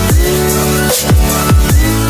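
Electronic dance music with a heavy bass line and deep kick drums that slide down in pitch, about two beats a second.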